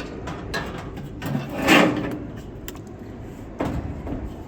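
Tub of a Speed Queen top-loading washer being pulled out of the machine: scattered knocks and clicks, with one louder scraping rush about two seconds in.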